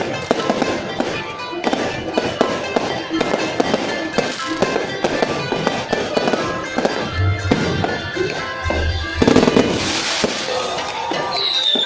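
Fireworks going off in quick, irregular bangs and crackles, with music playing underneath. Near the end a high whistling tone glides downward.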